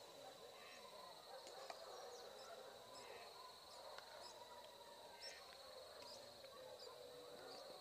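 Near silence with faint outdoor sounds: a steady high insect drone, short bird chirps about once a second, and a faint murmur of distant voices.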